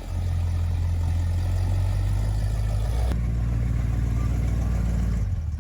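Chevy 350 small-block V8 in a 1954 International truck running steadily with a low, even rumble; the sound changes abruptly about three seconds in, as at a cut between two shots of the running engine.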